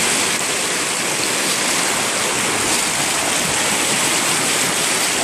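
White water rushing and churning down a rock slide, a steady, loud rush close to the microphone.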